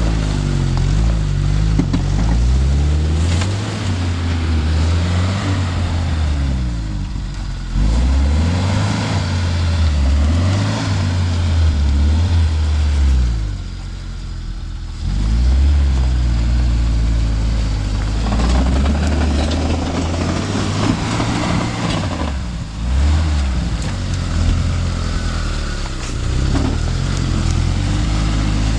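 Suzuki Vitara (Escudo) engine revving up and down repeatedly while driving off-road, its pitch rising and falling, with several brief drops in revs.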